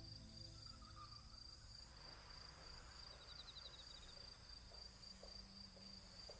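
Faint night ambience of insects: a steady high-pitched insect drone, with a short rapid cricket trill about three seconds in.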